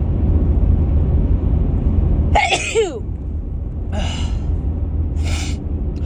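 A woman sneezes once, about two and a half seconds in: a sharp burst with a falling voiced tail, from a cold or allergies. Two short breathy sounds follow, over a steady low hum.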